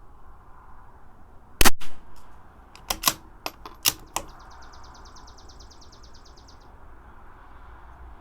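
A single .22 LR rifle shot from a CZ 457 bolt-action, followed by several sharp metallic clicks from the bolt being worked. A fast, high ticking follows for about two seconds.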